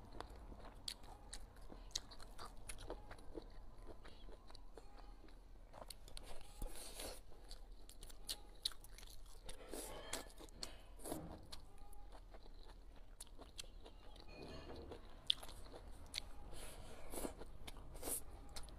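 Close-miked eating of stir-fried shredded potato and fried squid with chili: wet chewing and biting with many small mouth clicks, and a few longer sucking sounds as strands are drawn into the mouth.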